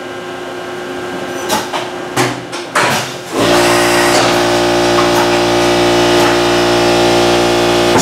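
CNC mill's face mill crashing into the vise jaw, destroying the cutter. A low machine hum is broken by a few sharp knocks, then about three and a half seconds in comes a sudden loud, steady cutting noise with a constant ringing tone as the cutter grinds into the metal jaw.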